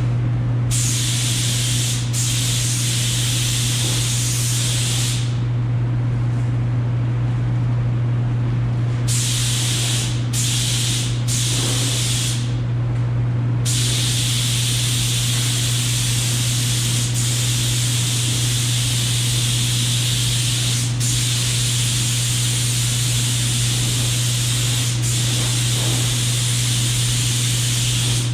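Gravity-feed air spray gun hissing in passes as epoxy primer is sprayed onto a sheet-metal tractor hood. The trigger is held for several seconds at a time, with a few-second pause and two short bursts in the first half, then almost unbroken spraying over the second half. A steady low hum runs underneath throughout and is the loudest sound.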